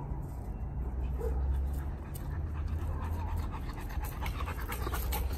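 A dog panting hard during rough play, over a steady low rumble.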